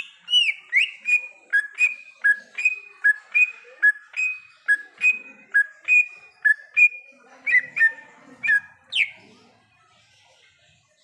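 Cucak ijo (green leafbird) singing a fast run of clear whistled notes, alternating higher and lower, about two to three notes a second. The run stops about nine seconds in.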